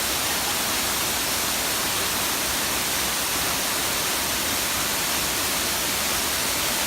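A 20-metre waterfall in strong flow, a steady, even rush of falling water.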